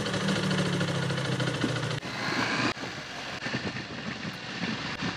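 Motorcycle engine running while riding, with wind rushing over the microphone. The steady engine note fades about two seconds in, leaving mostly wind and road noise.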